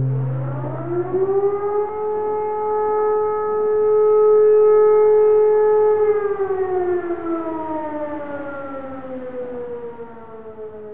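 A siren winding up in pitch, holding a steady wail for about four seconds, then winding slowly down and fading.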